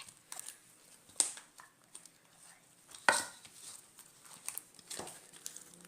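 Slime being mixed in a pot: irregular sticky clicks and squelches, with two louder knocks about a second and three seconds in.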